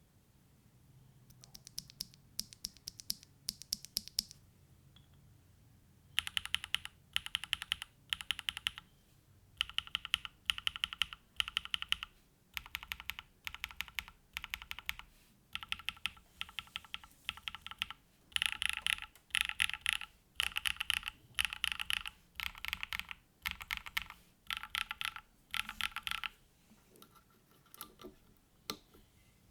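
Typing on a Mode Envoy mechanical keyboard with hand-lubed TTC Wild switches, a polycarbonate plate, mid foam and GMK Serika R2 doubleshot ABS keycaps. Rapid keystrokes come in bursts of about a second with short pauses between. The typing starts lighter about a second in, gets louder a few seconds later, and trails off to a few scattered clicks near the end.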